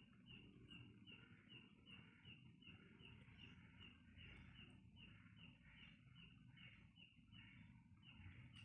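Faint chirping of crickets, a regular high chirp about two or three times a second, over near-silent room tone.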